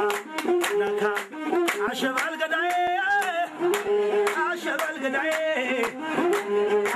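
Group singing a song with steady rhythmic hand-clapping, about three claps a second, over held accompanying notes.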